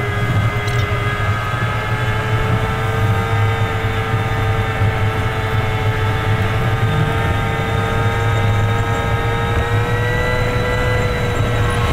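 Steady engine and road drone heard inside a truck's cab at expressway speed: a low hum with several held tones that drift slightly in pitch.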